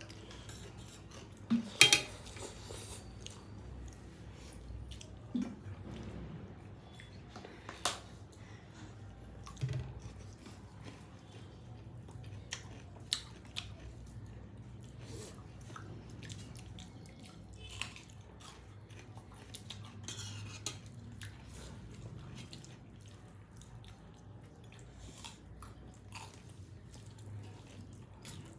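Scattered clinks and clatters of dishes and cutlery, with chewing in between; the loudest clatter comes about two seconds in.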